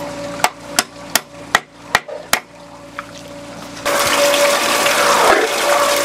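Hammer driving nails while batter boards are set up: six quick, sharp blows about 0.4 s apart, then a single lighter tap. About four seconds in, a loud steady rushing noise starts abruptly and covers everything.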